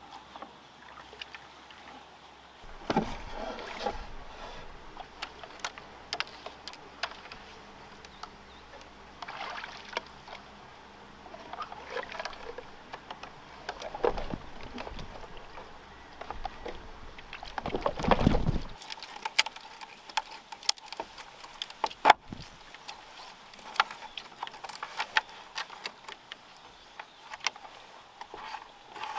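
Water lapping and sloshing around a floating bamboo raft while bamboo poles knock and rub together as the raft is handled and lashed by hand, with scattered sharp knocks and a louder burst of noise just before twenty seconds in.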